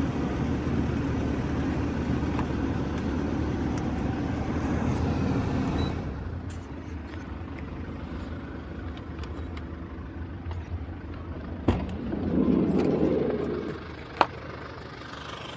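Steady whir of the power sunroof sliding open, stopping about six seconds in, over the low idle of the 4M40 2.8-litre turbodiesel. Near the end come two sharp knocks a couple of seconds apart.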